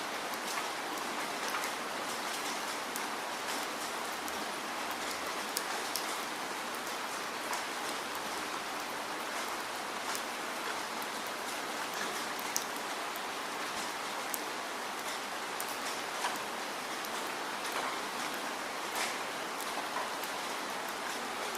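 Steady rainfall: an even, dense hiss with single raindrops ticking sharply through it at random.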